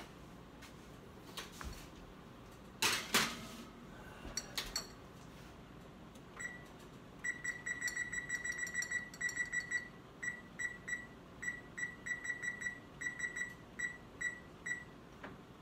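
Oven control-panel keypad on an electric range beeping as the oven timer is set: short, high beeps in a quick run about seven seconds in, then in small groups. A short clatter comes about three seconds in.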